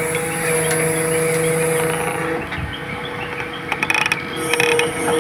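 JCB backhoe loader's diesel engine idling steadily, heard from the cab. From about three and a half seconds in there is a short run of rapid metallic clicking and rattling.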